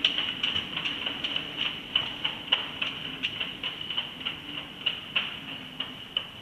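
Quick, irregular sharp clicks, about two or three a second, from a hand tool worked against the keel-to-hull joint of a sailboat on the hard. A steady high tone runs underneath.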